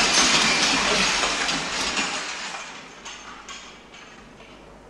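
Many recruits at once scrambling onto metal-frame bunk beds with their rifles: a dense clatter of creaking, rattling bed frames, clinking rifles and bodies landing on mattresses. It is loudest in the first two seconds and dies away as they settle.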